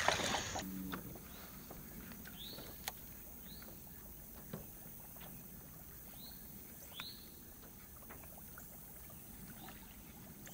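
Water splashing as a bass is let go by hand at the side of the boat, ending about half a second in. Then a quiet background with a bird's short chirps several times and a few faint clicks.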